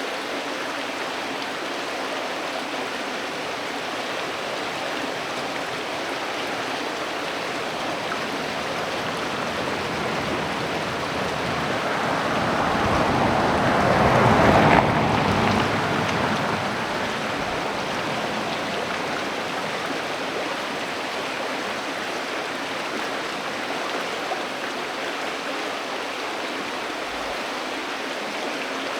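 River water flowing steadily, a continuous rush. About halfway through, a louder, deeper rush builds over a few seconds and then falls away quickly.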